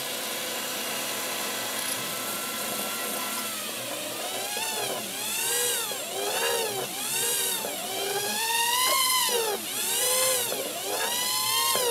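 Estes Proto X nano quadcopter's four tiny coreless motors and propellers whining while it sits on the bench. The pitch holds steady at first, then from about four seconds in swells and falls about once a second as the quad is tilted by hand and its gyro speeds up and slows the motors to level it.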